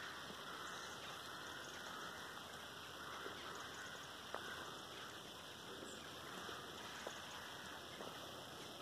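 Faint, steady outdoor background hiss with a few soft clicks scattered through it.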